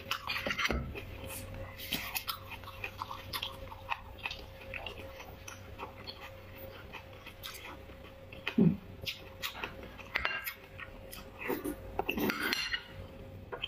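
Close-miked eating sounds: a metal utensil clicking and scraping inside a bone to dig out the marrow, then wet chewing and mouth noises as the bone marrow is eaten. A brief low voiced sound comes about two-thirds of the way through.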